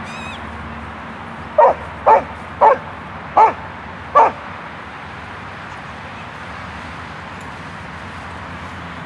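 Dog barking five times in quick succession, about half a second apart, over a steady background hiss.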